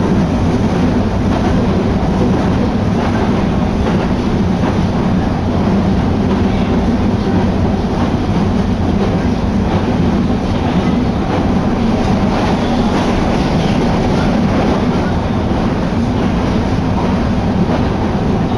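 Steady running noise of a Nagoya Municipal Subway Higashiyama Line train heard from inside the car: a continuous low rumble of wheels on rails and running gear while the train travels between stations.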